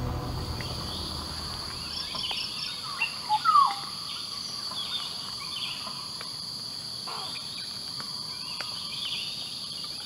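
Steady high-pitched insect chorus of crickets or cicadas, with a few short bird calls over it; the loudest is a quick falling whistle about three and a half seconds in.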